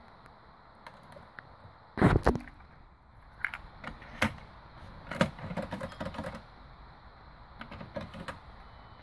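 Aiwa XK-S7000 cassette deck being handled by hand. A loud clatter comes about two seconds in, then clicks and rattles as a cassette is moved at the tape compartment and the door is shut, and a few lighter clicks near the end.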